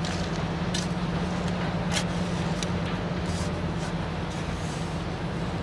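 Shovel blade scraping and pushing loose sandy soil under a PVC drain pipe in a trench, a few short separate scrapes, over a steady low mechanical hum.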